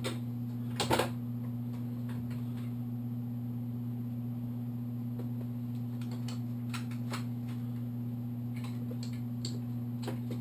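Light metallic clicks and clinks of sockets and hand tools being handled, with a louder clatter just under a second in, over a steady low hum.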